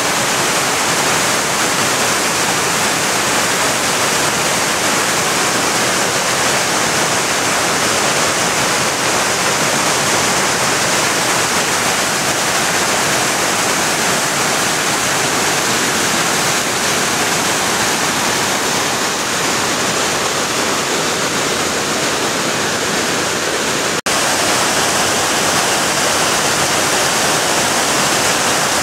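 Roaring River's whitewater pouring down the Alluvial Fan waterfall over large boulders: a loud, steady rush of falling water, broken once by a split-second gap near the end.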